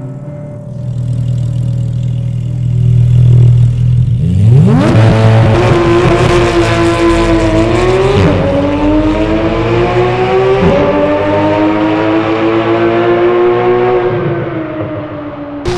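Porsche 911 GT3's flat-six engine through an Akrapovic exhaust, running low and steady for a few seconds, then revving hard under acceleration with the pitch climbing. There is a gear change about seven and a half seconds in, the pitch climbs again after it, and it falls away near the end.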